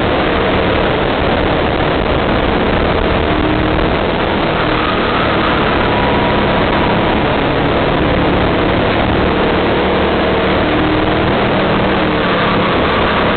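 Go-kart engine running at racing speed, heard from a camera mounted on the kart, with heavy wind noise over the microphone. The sound is loud and steady, and the engine note shifts up and down slightly as the kart goes through the corners.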